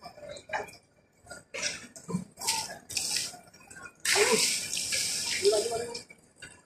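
Crowd of pilgrims: scattered voices with intermittent loud rushing noise, the longest rush about four to six seconds in.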